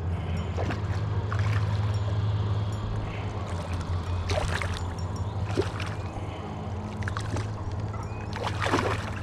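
Water splashing and sloshing beside a kayak as a hooked carp thrashes at the surface while being brought to the net, with sharp splashes about four, five and a half and nearly nine seconds in, over a steady low rumble.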